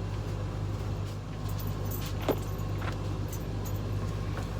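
Steady low mechanical hum with a few light metallic clicks from tools and cases being handled, the sharpest about two seconds in.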